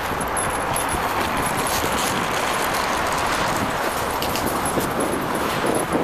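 Steady rushing noise of a bicycle being ridden: wind on the microphone and tyres on the path, with small rattles and clicks scattered throughout.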